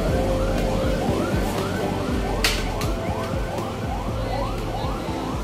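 Background music with a short siren-like sweep that rises and falls about three times a second over a steady backing, and one sharp click about two and a half seconds in.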